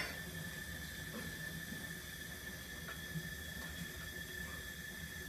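Bunsen burner flame burning with a steady low rush while it heats a brass ball, under a faint steady high whine; a light click about three seconds in.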